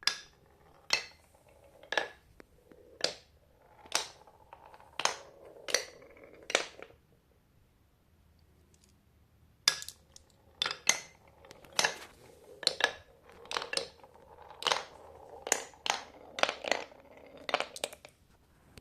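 Marbles clacking as they drop and roll along a marble run: sharp clicks about once a second at first, a short lull, then a quicker, busier run of clacks as several marbles come down together.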